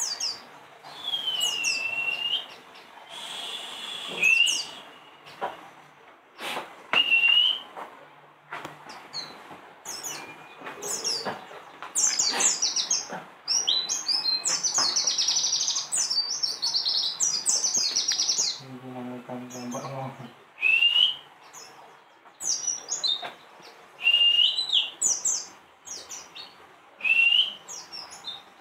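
Caged white-eyes (pleci) chirping and twittering: many quick high calls, with a lower swooping call repeated every few seconds.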